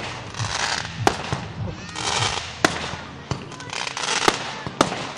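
Fireworks going off: sharp bangs about five times at uneven intervals, over a hissing crackle from the bursting shells that swells and fades.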